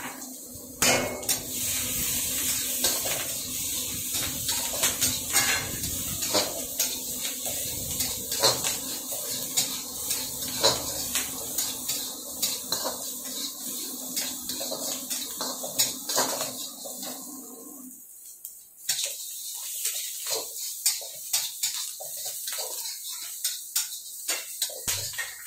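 Long metal spatula scraping and clanking against an iron wok as chopped garlic and capsicum are stir-fried, with a steady frying sizzle underneath. A low background hum cuts off about eighteen seconds in.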